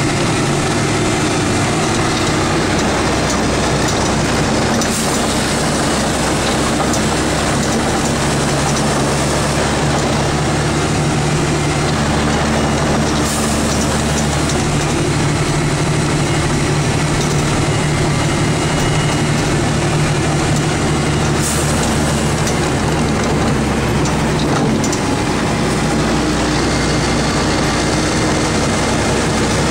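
A Ford L9000 plow truck's diesel engine running steadily under load, heard from inside the cab. Over it runs a constant rushing noise from the plow and wing pushing snow.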